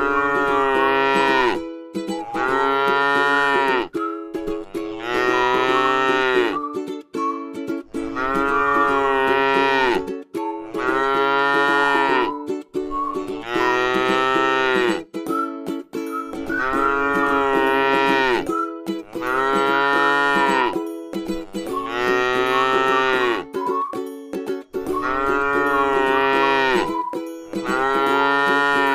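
Cow mooing over and over, one moo about every two seconds in a very even repeat, with music underneath.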